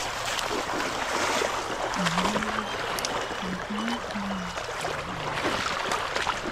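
Small creek running over rocks: a steady rush of flowing water.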